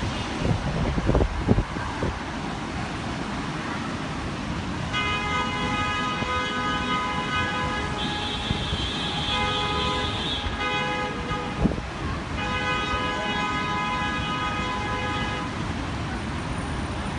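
A vehicle horn held in one long steady blast for about ten seconds, with a short break about two-thirds of the way through. Under it, a constant rumble of wind and traffic, with low thuds from wind buffeting the microphone near the start.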